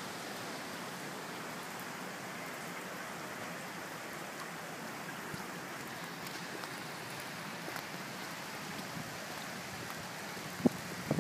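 Steady rain falling, an even hiss of drops, with a sharp knock near the end.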